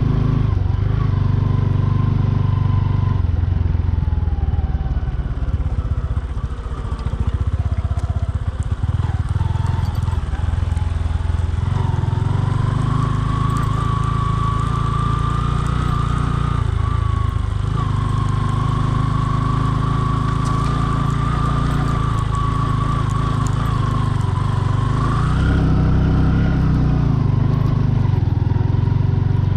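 Bajaj Boxer 150's single-cylinder four-stroke engine running as the motorcycle is ridden on snow, easing off about five seconds in and picking up again around twelve seconds, then running steadily.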